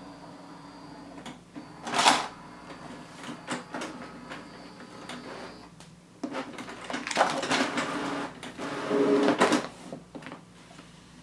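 Canon PIXMA MG7170 all-in-one printer's mechanism running with a faint steady whir and clicks, with one sharp clunk about two seconds in as the scanner lid and output tray open. From about six seconds in, paper rustles and slides as a page is laid on the scanner glass.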